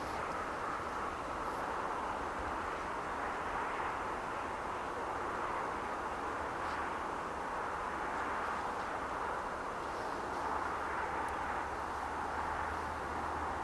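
Steady outdoor rushing noise with slow swells, like wind or distant traffic, over a faint low hum that strengthens a little near the end.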